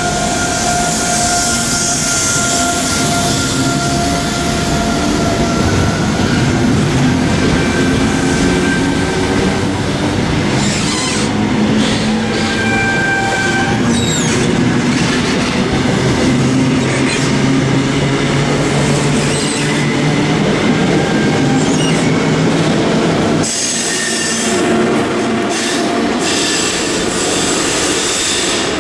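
Greater Anglia locomotive-hauled passenger train of coaches with a Class 90 electric locomotive rolling slowly through the platform, the wheels rumbling and clacking over the rail joints with high wheel squeal coming and going. The sound changes about three-quarters of the way in.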